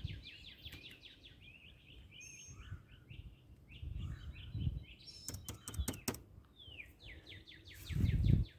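Small birds singing in rapid trilled runs of chirps, with a few sharp clicks a little past the middle and some low rumbling from handling or wind on the microphone.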